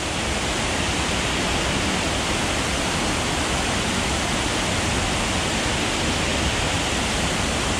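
Steady rush of water pouring over a small dam's waterfall.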